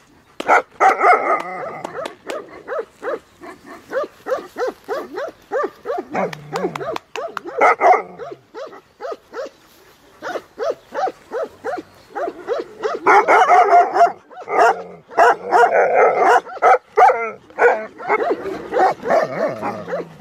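Tibetan mastiffs barking together, overlapping barks coming several a second without a break. The barking is loudest shortly after the start and again over a few seconds about two-thirds of the way through.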